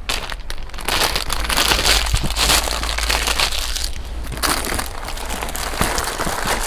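Thin plastic wrapping crinkling and crackling continuously as wrapped bottles are handled and rummaged through in a cardboard box.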